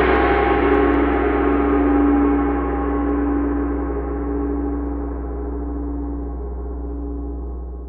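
The final chord of a fun-punk band's song ringing out and slowly dying away, with a steady deep low note beneath it.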